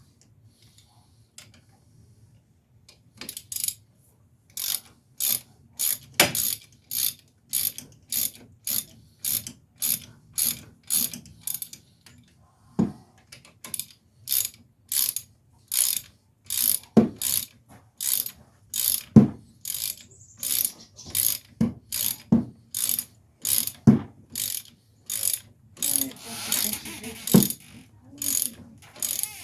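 Hand ratchet wrench being worked back and forth on a bolt, a steady run of sharp clicks about one and a half per second, starting a few seconds in; now and then a stroke lands with a heavier knock.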